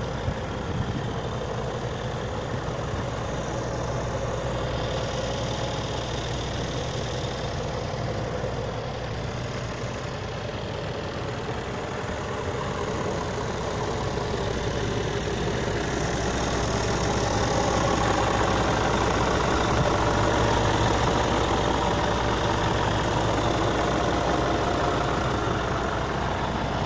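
Scania P-series truck's diesel engine idling steadily, growing louder about two-thirds of the way through.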